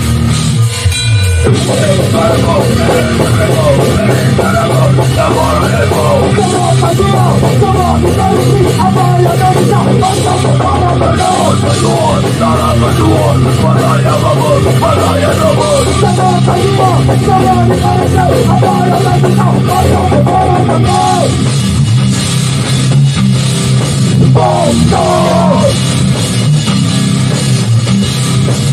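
Hardcore band playing loud in a rehearsal room: distorted electric guitars, bass and drum kit, with a brief break about a second in before the full band comes back.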